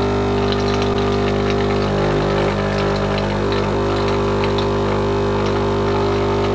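Capsule espresso machine's pump running steadily, a loud buzzing hum with faint crackles of air and water spitting from the spout, as it pushes the last water out of its emptied circuit to winterize it.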